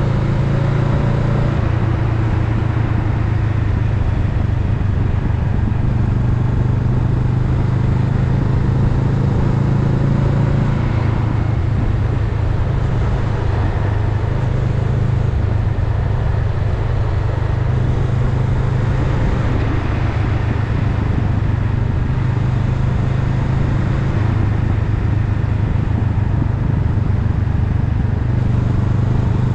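Honda Rebel 500's parallel-twin engine running steadily while the motorcycle is ridden, its note shifting a little now and then, under a constant rush of wind and road noise.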